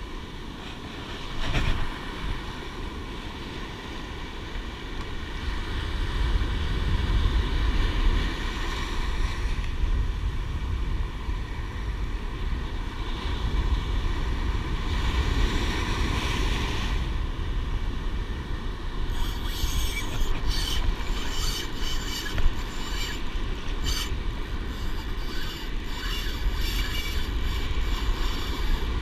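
Daiwa Saltist spinning reel being cranked to retrieve line, its gears whirring steadily, with wind buffeting the microphone and surf washing in. In the second half, rapid ticking sounds over the whirr.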